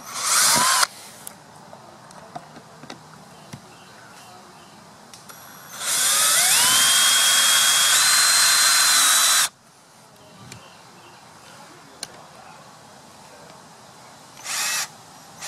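Cordless drill driving screws into PVC pipe. There is a short whirr at the start, then a long run of about three and a half seconds in which the motor whine rises, holds and steps up in pitch near its end, then another short burst near the end. Faint clicks and taps of handling come in between.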